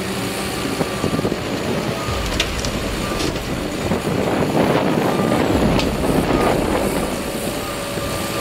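Heavy machinery running: a steady mechanical rumble with a few clanks, loudest in the middle.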